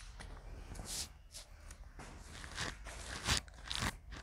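Marker writing on a whiteboard: a run of short scratchy strokes, the loudest two a little past three seconds in and near the end, over a faint low hum.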